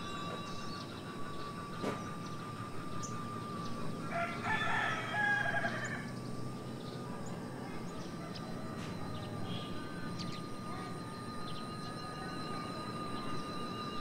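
A flock of birds circling overhead gives a steady, slightly wavering whistling hum of several held tones. It is a very peculiar sound that was first taken for an electrical circuit or leaking water. About four seconds in, a rooster crows for about two seconds, the loudest sound.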